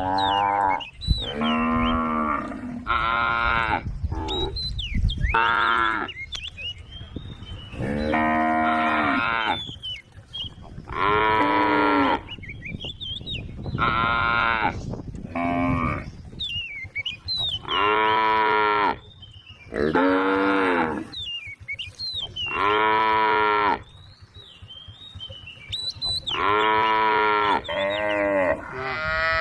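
Cattle mooing over and over, a dozen or so calls each about a second long with short gaps between them, the calls varying in pitch.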